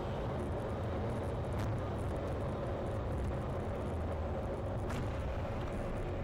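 Steady road and engine noise of a car driving slowly, a low rumble with two faint clicks, one near the start and one near the end.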